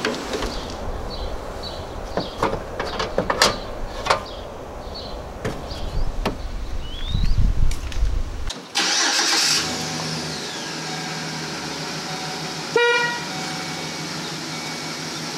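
Clicks and knocks of hand work in a van's engine bay, then, from about nine seconds in, a newly fitted replacement car horn on a 2013 Chevy Express van sounds steadily for several seconds: the new horn being tested after the old one failed.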